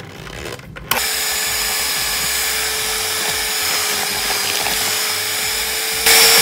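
Electric hand mixer switched on about a second in, its motor running with a steady whine while the beaters work flour into creamed butter cake batter. It gets louder near the end.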